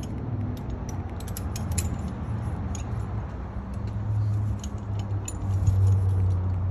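Steel tire-chain links clinking and a load binder being worked to tighten the chain on a spring tensioner, making scattered sharp clicks, over a steady low hum.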